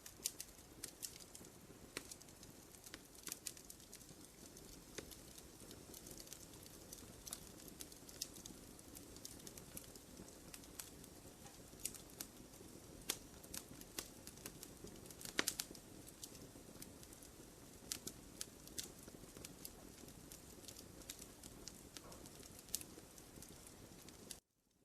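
Wood fire in a fireplace crackling: a steady low hiss of burning with irregular sharp pops and snaps, a quick cluster of louder pops about halfway through. The sound cuts off suddenly just before the end.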